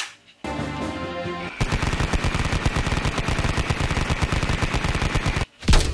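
A moment of music, then a machine-gun fire sound effect: rapid, evenly spaced shots at about ten a second for roughly four seconds, ended by a loud thump near the end.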